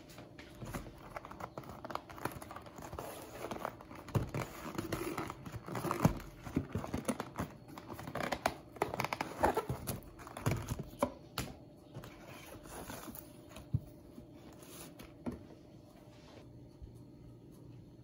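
Paperboard doughnut box being handled as its paper sleeve is slid off and the lid opened: crinkling and scraping with light taps against the tabletop. The handling is busiest through the middle and dies down near the end.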